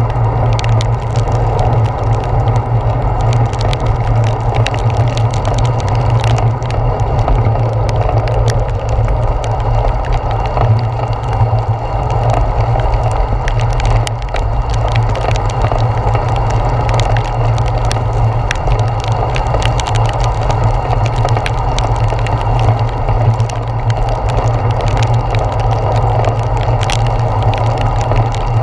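A bicycle riding through heavy rain on a wet paved path: a steady low rumble and tyre hiss on the wet pavement, with many sharp ticks of raindrops striking the handlebar-mounted camera.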